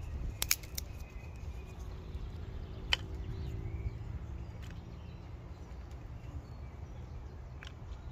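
Wood-burning storm kettle being fed. A few sharp clicks and knocks come as twigs are dropped down its chimney: three close together near the start and a louder one about three seconds in. A low steady rumble runs underneath.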